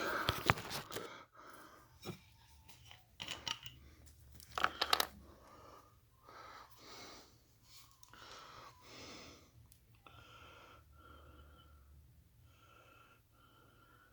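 Knocks and clatter of a handheld camera being set down and handled, then faint, irregular scuffing and rustling.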